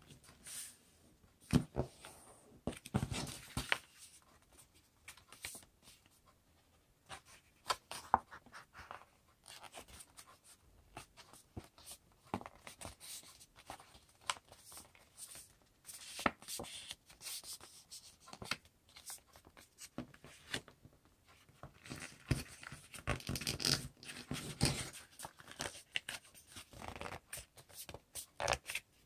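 A sheet of paper being folded and creased by hand: irregular rustling, crinkling and scraping, coming in bursts with short pauses between.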